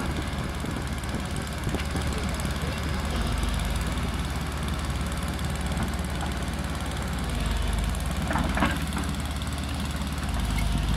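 A JCB tracked excavator's diesel engine runs steadily while the boom and bucket dig and move earth.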